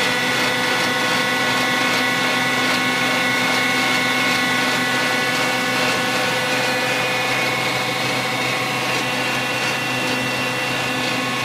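Truck-mounted centrifugal pump and its drive running steadily: an even mechanical drone with several constant whining tones over it.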